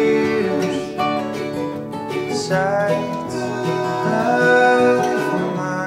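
Folk song: finger-picked acoustic guitar over upright bass, with a male voice holding sung notes between lines.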